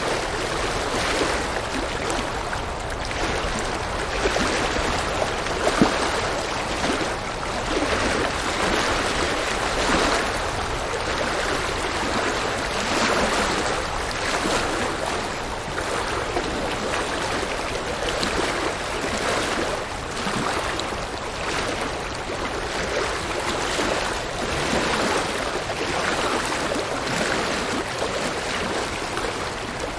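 River or stream water rushing and splashing over rocks, a continuous rush with gentle swells.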